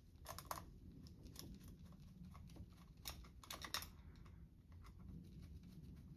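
Faint, scattered light clicks and taps of small metal carburetor parts and screws being handled and fitted during reassembly, in small clusters.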